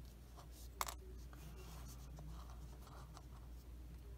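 Small plastic model-kit parts, the seat belts and seat of a 1/48 Airfix kit, being handled and fitted together by hand: a light click a little under a second in, then faint scratching and rubbing of plastic against plastic and fingers.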